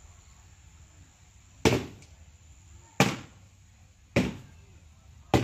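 Four sharp knocks, about a second and a quarter apart, each fading quickly.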